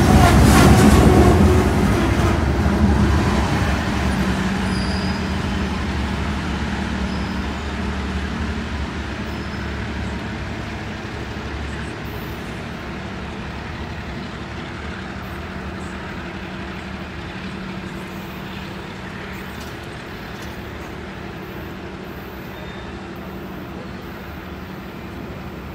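Diesel-hauled work train of Herzog hopper cars rolling past at close range, its wheels and cars rattling on the rails, then fading as the train moves away. A steady low drone stays underneath as it goes.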